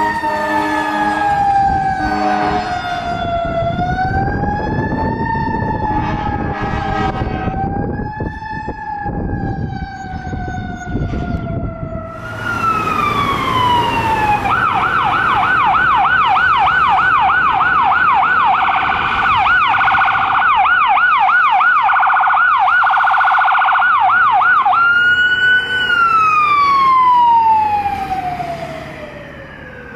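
Emergency vehicle sirens on a response run: a slow wailing siren gliding down and up, with short horn blasts in the first couple of seconds. Midway a rapid yelp sets in for about ten seconds, then gives way to a long wail falling steadily in pitch.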